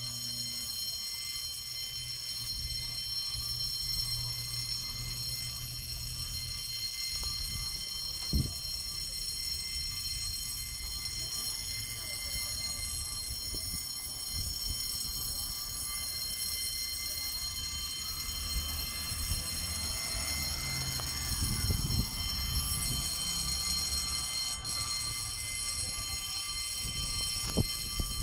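Railway level-crossing warning alarm sounding continuously as a steady high-pitched tone, signalling that the barrier is down for an approaching train. Under it runs a low rumble that grows louder about twenty seconds in, with two sharp knocks, one early and one near the end.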